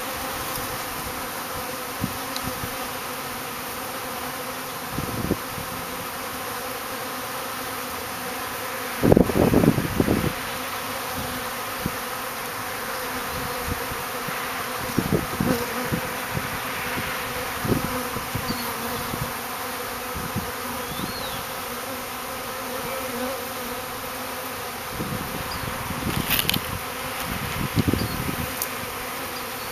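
Many honey bees buzzing around a hive entrance: a steady hum of wingbeats, with short louder swells as single bees fly close past, the loudest about nine seconds in.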